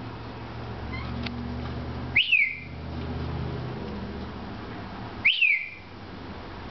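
Cockatiel giving two short whistled calls about three seconds apart, each sweeping sharply up and then sliding down in pitch. A steady low hum runs underneath.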